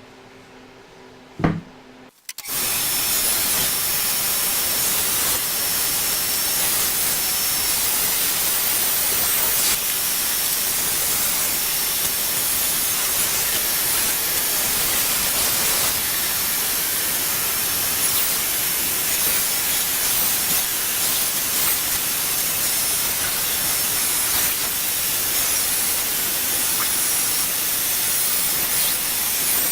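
A shop power tool running steadily, an even loud hiss that starts about two seconds in after a single click.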